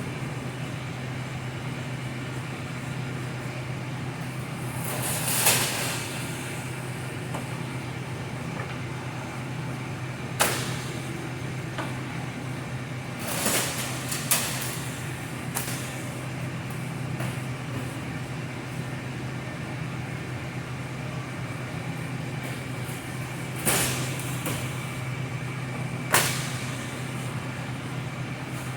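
Sheet-metal duct being worked for a stiffening bead: a steady low machine hum, with the metal flexing and rattling about five seconds in and again around thirteen seconds, and a few sharp metallic clanks.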